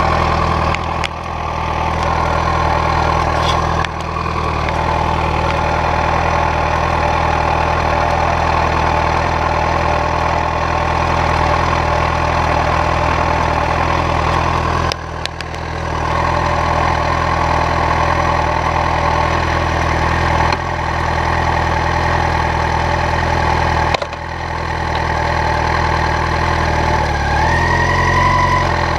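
Motorcycle engine idling steadily, picked up close to the rear wheel. It dips briefly a few times and rises in pitch for a moment near the end.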